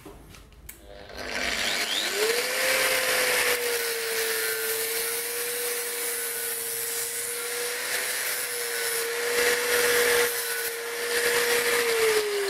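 Stanley angle grinder spinning up about a second in and cutting through a metal anchor sleeve with an abrasive disc. A steady motor whine runs under the grinding hiss, and the whine drops as the grinder winds down near the end.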